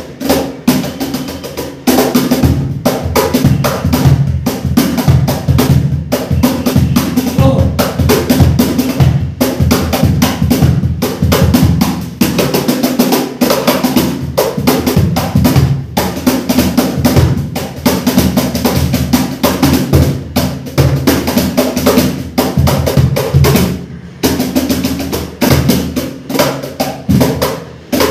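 ClapBox CB11 cajon with an oak front plate played by hand: a fast, continuous run of sharp slaps and deep bass strokes, with short breaks about two seconds in and again about 24 seconds in.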